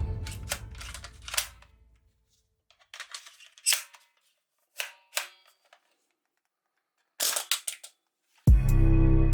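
Sharp plastic clicks and snaps from a toy gun being worked and fired, in several short groups with pauses between them. Loud music with a beat starts near the end.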